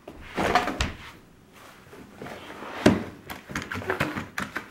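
Knocks and clatter of a plastic basket cat carrier being handled as a cat is put into it, with one sharp knock about three seconds in and small clicks and rattles after it.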